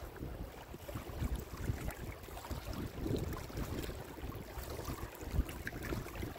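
Wind rumbling and buffeting on the microphone, over small waves lapping in shallow lake water among shoreline rocks.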